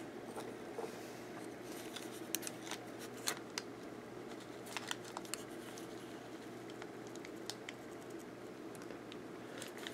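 Faint, scattered small metal clicks of a hex key working a set screw in a motor-shaft coupler as it is torqued down, over a steady low hum.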